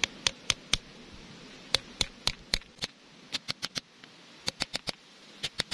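Sharp metal taps of a hammer on a blunt screwdriver, driving a new oil seal evenly down into the wheel-axle hub housing of a walk-behind tiller. The taps come in quick runs of four or five, with short pauses between.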